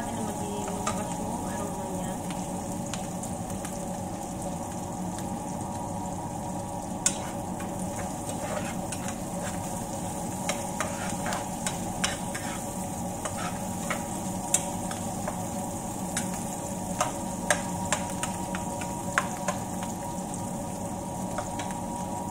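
Sliced onions sizzling steadily in oil in a nonstick frying pan, stirred with a metal spoon that clicks and scrapes against the pan every second or two.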